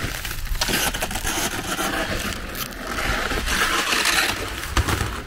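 Flexible aluminium-foil dryer vent hose crinkling and scraping as it is pulled and stretched out by hand.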